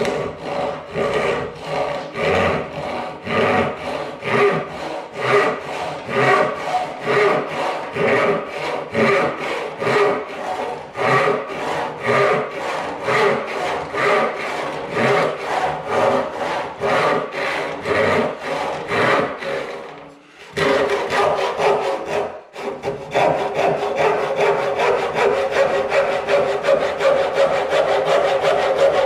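Dull crosscut hand saw (panel saw) cutting through a wooden board in steady back-and-forth strokes, about two to three a second. The strokes pause briefly about twenty seconds in, then resume faster. The teeth are dull, so the cut goes slowly.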